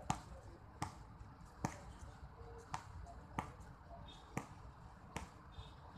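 A basketball being dribbled on a hard outdoor court: sharp single bounces roughly once a second, over a low background rumble.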